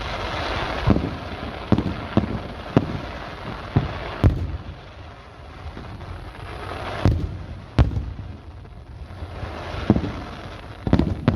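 Aerial fireworks bursting: about a dozen sharp booms at uneven intervals, with a crackling, sizzling wash between them that swells near the start and again toward the end.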